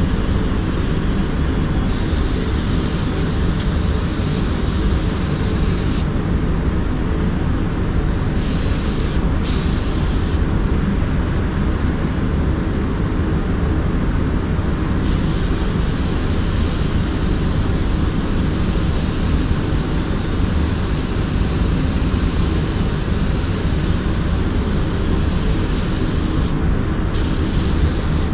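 Compressed-air paint spray gun hissing in bursts as the trigger is pulled and released: one stretch of a few seconds, several short spurts, then a long spell of spraying with one brief break, over a steady low machine hum.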